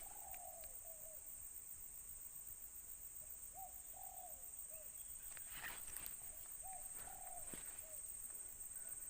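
A bird calling a short phrase of a few curved, cooing notes, repeated about every three seconds, over a steady high hiss.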